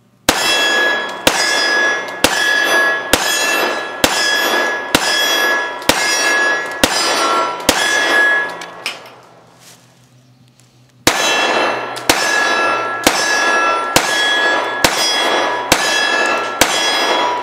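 Dan Wesson 1911 .45 ACP pistols fired at steel targets in two slow strings, about one shot a second, each sharp crack followed by a ringing clang that hangs on until the next shot. About nine shots, a pause of two or three seconds, then seven or eight more.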